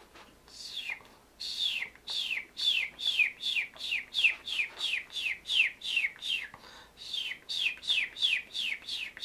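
A man imitating a baby chick with his mouth: a long run of high, thin peeps, each falling in pitch, about three a second, with a short break about seven seconds in.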